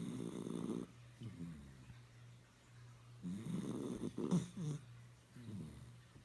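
Puppy snoring: about four snoring breaths, the third the longest and loudest, a little past the middle. Under them runs the steady low hum of a pet water fountain.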